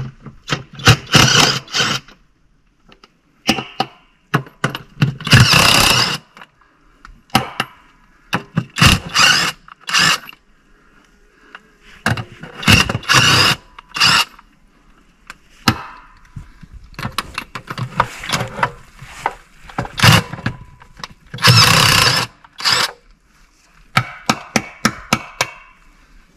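Cordless impact wrench undoing the wheel nuts on a large all-terrain-vehicle wheel, running in repeated loud rattling bursts with pauses between them. Near the end there is a quick run of sharp clicks.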